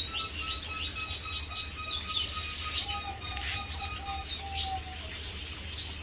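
Male red siskin singing vigorously: a fast, continuous twittering song of repeated arching chirps, over a steady low hum.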